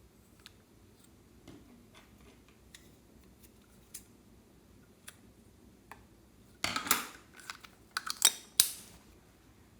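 Slime-making sounds with clear slime and makeup: small scattered clicks and taps, then a few loud crackling, crunchy bursts about seven and eight seconds in.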